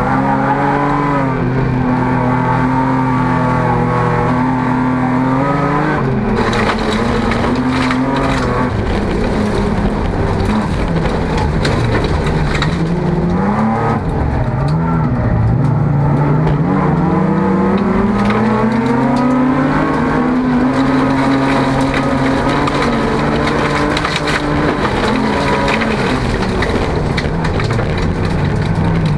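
Folk-race car's engine heard from inside its stripped cabin, revving hard and dropping repeatedly through gear changes and corners on a dirt track. There are occasional knocks and rattles, a cluster of them around six to eight seconds in.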